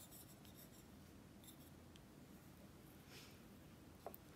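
Near silence, broken by faint scraping and, about four seconds in, a light tap as a wooden spoon goes into a ceramic mug of corn soup with bread in it.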